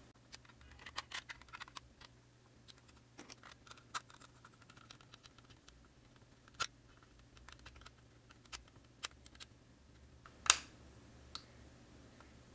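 Faint, irregular clicks and scrapes of a screwdriver driving small screws into a 3D-printed plastic case, with one sharper click about ten seconds in.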